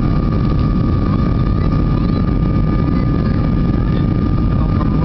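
Steady cabin noise of a Boeing 737-300 climbing after takeoff, heard from a seat over the wing: the deep rush of its CFM56-3 engines and the airflow, with a steady high tone running through it.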